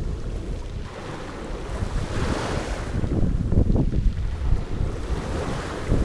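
Small sea waves breaking and washing up a shingle beach of rounded pebbles, one wash swelling and fading about two seconds in. Wind buffets the microphone, a steady low rumble under the surf.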